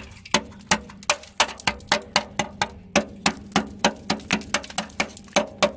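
Hammer tapping repeatedly on the rusty steel rear chassis rail of a Land Rover Discovery 2, about four sharp knocks a second, tap-testing the rail for rot.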